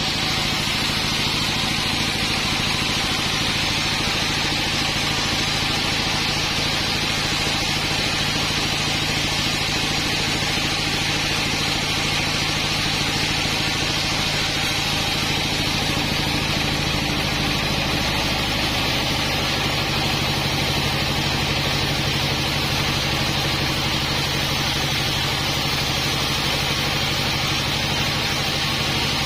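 Sawmill running steadily: an engine hum under a loud, even hiss. The engine note shifts slightly about 18 seconds in.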